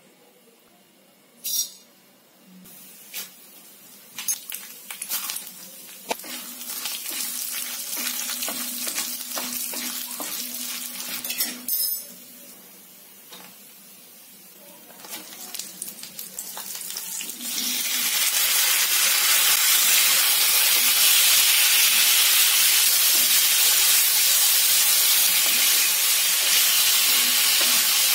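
Hot oil sizzling in an iron kadai as dals, dried red chillies and garlic fry, with a few sharp clinks of things dropping into the pan. About two-thirds through, a much louder, steady sizzle takes over as chopped tomatoes and onion fry and are stirred with a spatula.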